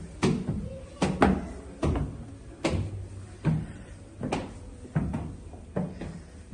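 Footsteps climbing stairs, a steady series of knocking treads about one every three-quarters of a second.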